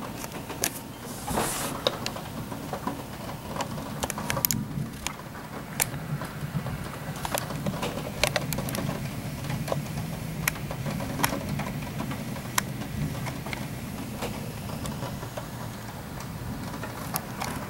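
Scattered storm precipitation striking nearby surfaces: irregular sharp ticks, a few a second, over a steady low rumble.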